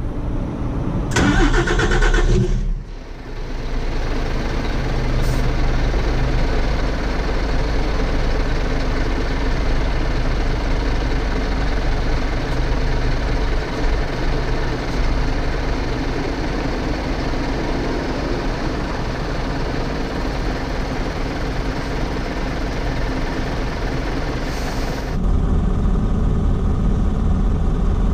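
A Scania R450 truck's diesel engine starting with a harsh burst of cranking, then idling steadily. About 25 seconds in, the running turns deeper and heavier.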